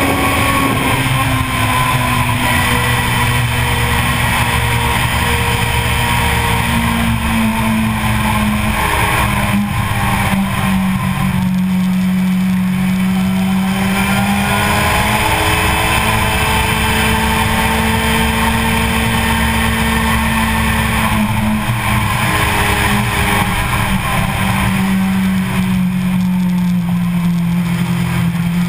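Sport motorcycle engine under way at high speed, heard on board over a steady rush of wind. The engine note drops and climbs several times as the bike slows from over 200 km/h and the rider works the throttle and gears.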